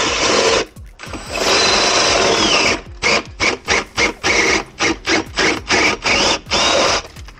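Electric drill boring through a plasterboard partition wall. It runs in two stretches of about a second and a half, then is pulsed on and off in short bursts about three times a second.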